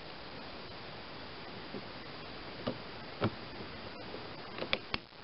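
Pliers working a spring hose clamp on a rubber fuel line at the fuel tank fitting: a few sharp metal clicks, the last two close together near the end, over a steady hiss.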